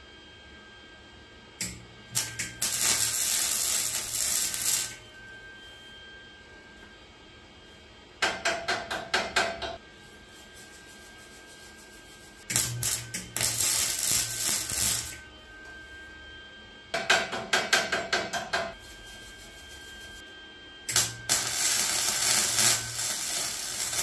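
Flux-core wire welder arc on a cast-iron bed frame: five short weld passes, each starting with a few sputtering pops and then crackling steadily for one to three seconds before stopping.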